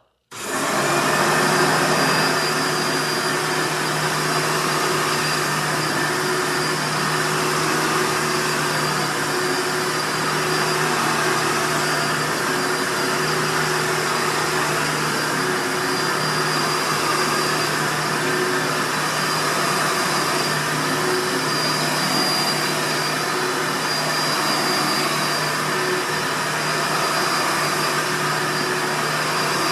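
Hoover Runabout, a bagged direct-air (dirty-fan) upright vacuum, switching on just after the start and running loud and steady, with a steady low hum and a faint high whine over the rush of air through its fan.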